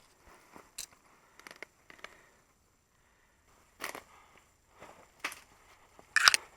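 Footsteps crunching in snow: a string of short, uneven crunches about a second apart, the loudest near the end.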